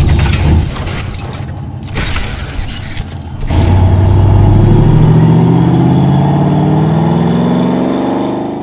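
Car engine accelerating: a low rumble, then from about three and a half seconds in an engine note that rises steadily in pitch and fades near the end.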